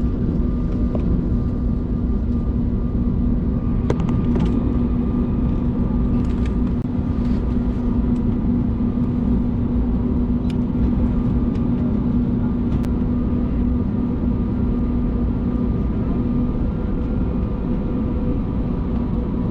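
Airbus A321neo's Pratt & Whitney PW1100G engines running, heard inside the cabin beside the engine: a steady rumble with a constant low hum.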